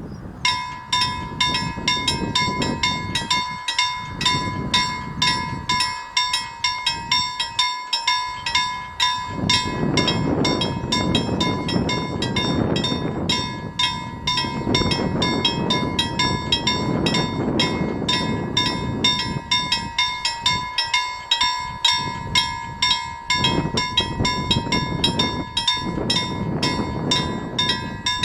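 Level crossing warning bell starting up and ringing continuously in rapid, even strokes. Under it, a train passes with a low rushing noise that swells through the middle.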